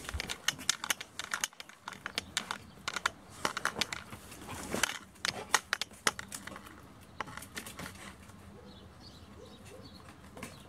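Quick, irregular clicking and scratching of a German wirehaired pointer puppy's claws on concrete as it trots and scrambles about. The clicks thin out after about seven seconds.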